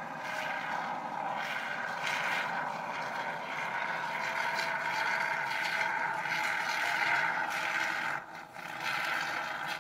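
Can of polyurethane expanding foam hissing steadily as foam is sprayed through its straw nozzle into the gaps between logs, breaking off briefly about eight seconds in.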